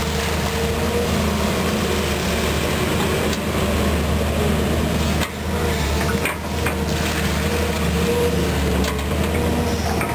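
Volvo EC210B excavator's six-cylinder diesel engine running steadily under working load, with a steady whine that fades in and out as the bucket presses and spreads dirt.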